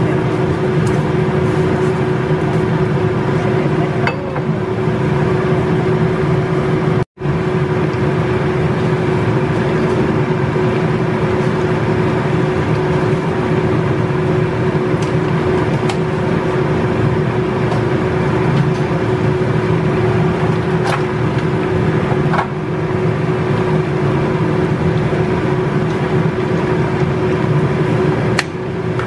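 Steady machine hum with one constant tone, running unbroken apart from a momentary cut-out about seven seconds in.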